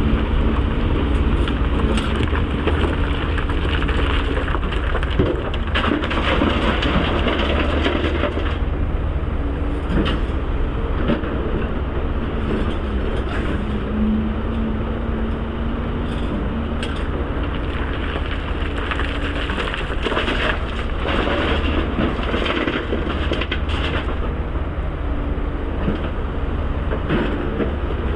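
Caterpillar 336 excavator's diesel engine running steadily under load. Irregular bursts of rock and dirt scraping and clattering, as the bucket digs and dumps, come strongest a few seconds in and again about two-thirds of the way through.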